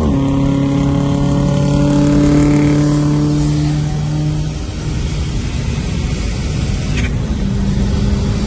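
Turbocharged Honda F20B four-cylinder in a 2002 Accord: the revs drop sharply right at the start, as at a gear change. The engine then pulls at steady revs for about four seconds before its note falls away under road noise, and a steady engine note comes back near the end.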